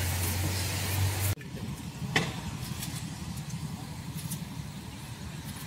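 Steady low engine rumble with a hiss above it that cuts off abruptly about a second and a half in, leaving a quieter low rumble and one sharp click.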